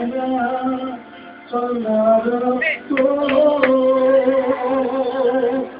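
A song with a man singing long held notes, with a short break in the sound about a second in.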